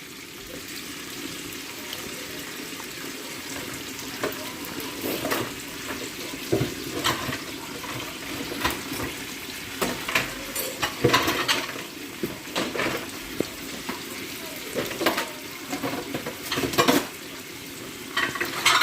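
Pork belly frying in a pan with its liquid cooking down: a steady sizzling hiss, with short scrapes and clicks from a utensil stirring against the pan.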